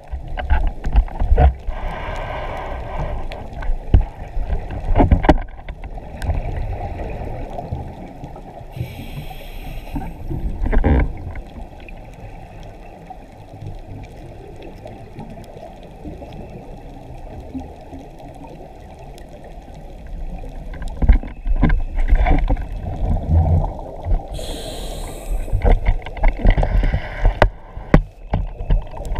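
Scuba diving sounds heard underwater through a camera housing: a continuous muffled rumble of bubbles and water with irregular knocks, and a few hissing breaths from a diver's regulator, about 2, 9 and 24 seconds in.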